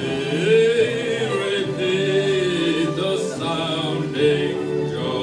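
A man sings into a handheld microphone, a melodic line with long held notes.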